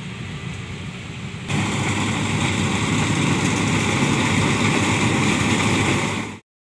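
Rice combine harvester running steadily, its engine and threshing machinery making a continuous mechanical noise. The noise gets abruptly louder about a second and a half in and cuts off suddenly near the end.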